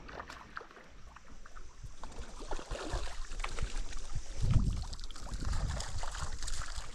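Water splashing and trickling with scattered small knocks and clicks, and a louder low rumble about four and a half seconds in.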